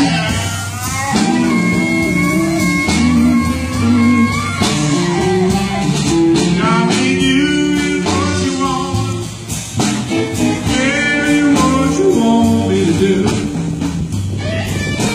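Blues music: singing over guitar and bass.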